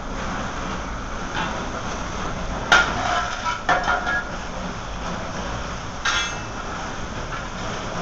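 Glowing coke and slag dropped from a cupola furnace being raked with a long iron bar: a steady hiss and rumble from the hot heap, with a sharp metal clank a little under three seconds in, a few more clanks just after, and a rattling scrape about six seconds in.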